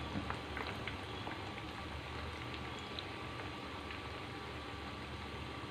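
Chicken pakodi pieces deep-frying in hot oil in a kadai: a steady bubbling sizzle with scattered small pops.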